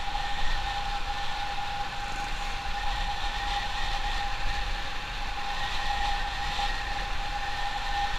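Motorcycle riding at a steady speed: a constant engine whine with wind rush and rumble on the microphone.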